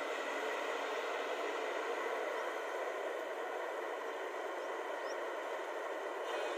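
Tracked excavator's diesel engine running with a steady, even noise as the machine swings its boom.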